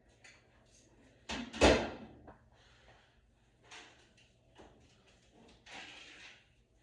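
Knocks and scrapes of things being handled during a washing machine swap, the loudest about a second and a half in, with a few lighter ones after.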